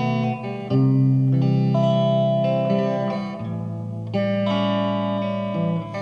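Background music led by guitar, held chords that change every second or two.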